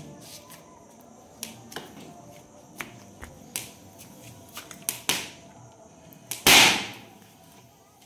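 Misfired firecrackers going off in a fire: scattered sharp pops and cracks, then a louder bang about six and a half seconds in.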